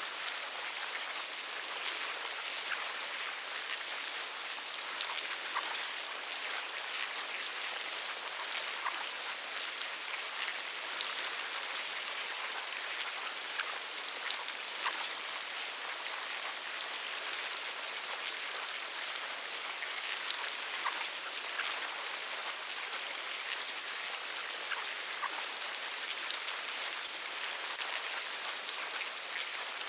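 Insect larvae: a steady, dense fine crackling of tiny ticks and clicks, with scattered sharper ticks and a few brief faint peeps.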